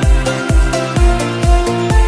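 Background electronic dance music with a steady kick drum about twice a second under held synth chords.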